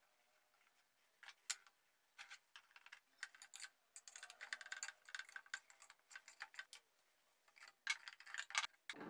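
Small metal clamps being placed and tightened around a wooden mandolin body: a string of sharp clicks and rattles of metal on metal and wood. They come scattered at first, then thick about four to five seconds in and again near the end.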